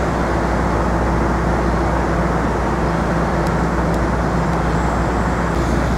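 Steady city street traffic noise with a constant low engine hum, unchanging throughout.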